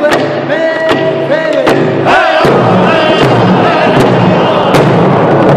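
Round dance song: handheld frame drums struck in a steady beat while a group of men sing in high, wavering voices. A little over two seconds in, the singing thickens as more voices fill in.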